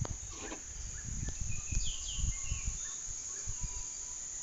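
Outdoor background of insects trilling, with a few short bird chirps about two seconds in, over low bumps from the phone being handled against the wooden box.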